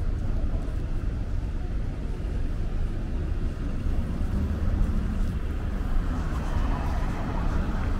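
Steady low rumble of road traffic from cars and buses on a multi-lane city road.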